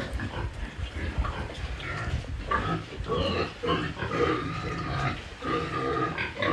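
Pigs in a pen calling, with a run of short pitched calls starting about two and a half seconds in over a low rumble of movement.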